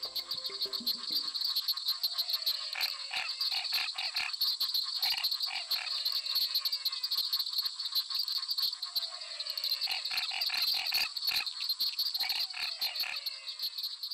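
A chorus of frogs and insects: a steady high-pitched trill throughout, with repeated sequences of clicking calls and a short falling note every three to four seconds.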